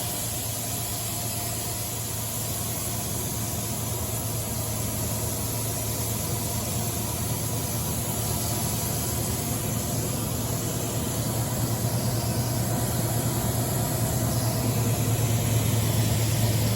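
OKK MDV55 50-taper machining-center spindle running, heard with the phone held against the spindle: a steady low hum with thin steady tones and a high hiss, growing slightly louder near the end. The spindle bearings are very quiet.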